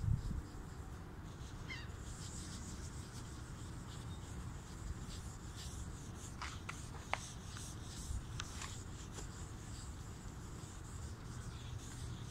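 A rag rubbing back and forth over a plastic car headlight lens while polishing it: a steady scratchy swishing, with a few small clicks partway through.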